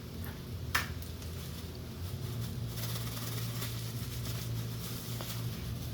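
Kitchen sounds while a pan of scrambled eggs cooks on a low heat: a steady low hum and a faint hiss from the pan, with one sharp click just under a second in.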